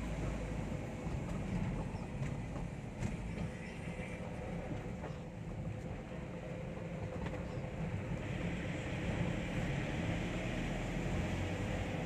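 Steady engine and road noise of a moving vehicle heard from inside the cabin, its tyres running on a wet road. It gets a little louder and brighter from about eight seconds in.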